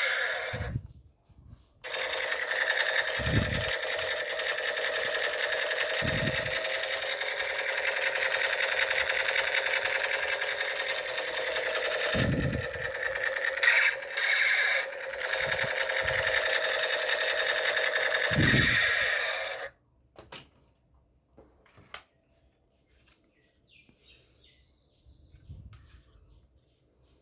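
Battery-powered toy gun firing on automatic: a continuous fast buzzing rattle held for about eighteen seconds, with a few low thumps under it, that stops suddenly; a few faint clicks follow.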